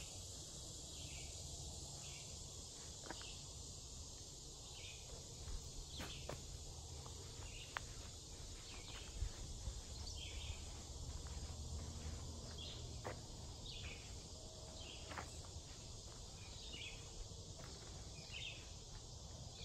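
Steady high hiss of an insect chorus in summer woods, with scattered short clicks and crunches of footsteps on a dirt trail now and then.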